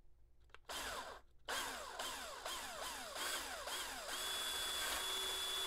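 Handheld power drill with a 5/16-inch twist bit boring through the Monokote-covered side of a balsa model-plane fuselage. A short burst comes about a second in, then after a brief pause the drill runs on, its pitch falling again and again, until it settles into a steady run near the end.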